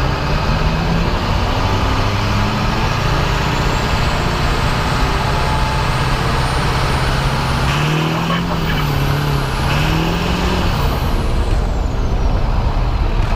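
Pickup truck running and moving, heard from under the front end: steady engine and road noise. About two-thirds of the way through, the engine note rises and falls twice, with a high whistle sweeping up and down along with it.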